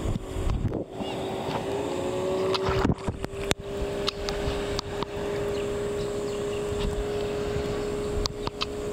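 Boat engine running with a steady hum that rises slightly in pitch just under two seconds in and then holds, with scattered knocks.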